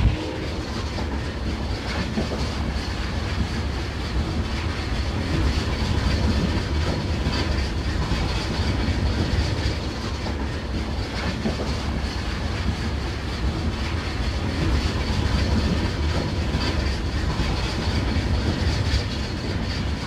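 A train running along the track: a steady rumble of wheels on rails, with faint clicks as the wheels cross the rail joints.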